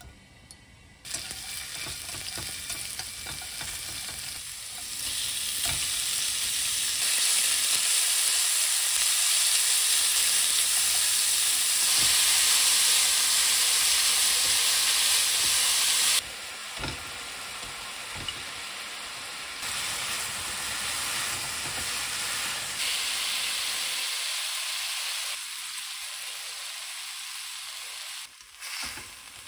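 Oil sizzling in a nonstick wok as minced garlic, then thin strips of beef and sliced cucumber are stir-fried with chopsticks. The sizzle starts about a second in, is loudest in the middle, and changes level in sudden steps.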